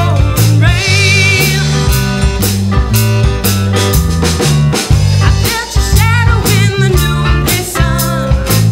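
Live folk-rock band playing an instrumental passage: drum kit keeping a steady beat under bass and guitar, with a wavering lead line on top.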